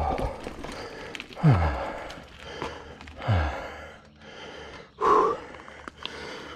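Mountain biker breathing hard from the effort of riding: heavy voiced exhales, each falling in pitch, roughly every one and a half to two seconds, with a sharper breath about five seconds in. Light clicks and rattles from the bike come through over the roots.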